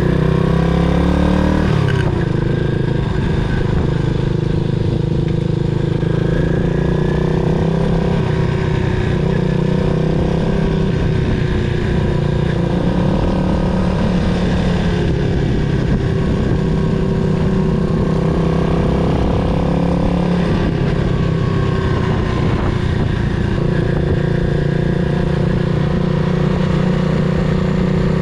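Yamaha SR400's air-cooled single-cylinder engine running on the move. Its pitch climbs over the first couple of seconds, then drops as on a gear change, and holds fairly steady after that with small rises and falls.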